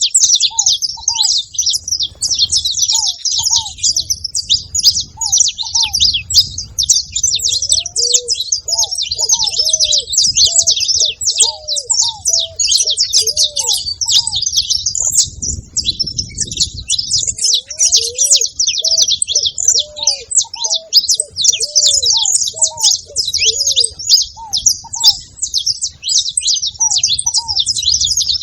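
Saffron finches (canário-da-terra) chirping and twittering rapidly and continuously in high-pitched notes. Underneath runs a lower bird call of short, arching notes repeated in phrases, which drops out twice.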